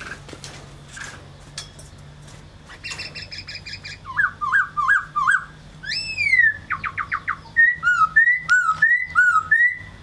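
Black-throated laughingthrush singing: after a few faint chips, a fast run of notes about three seconds in, then looping whistles, one loud downslurred whistle, a quick trill, and repeated two-note whistled phrases through the second half.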